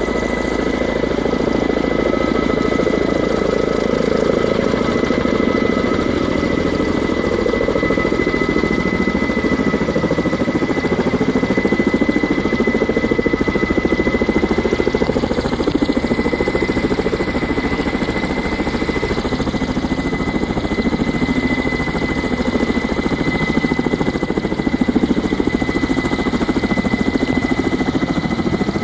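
Kamov coaxial-rotor helicopter hovering with a load on its sling line, rotors and turbine engines running steadily, with a constant high whine over the dense rotor noise.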